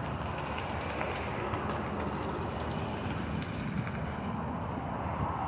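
Steady rushing background noise, with a few faint clicks.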